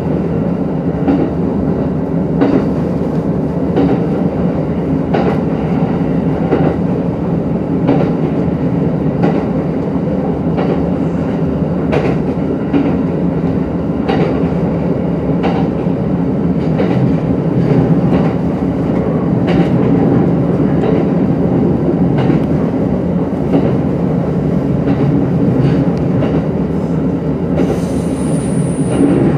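JR E231-series electric commuter train running at speed, heard from inside the car: a steady rumble of the running gear with frequent irregular clacks of the wheels over rail joints. A brief high squeal comes near the end.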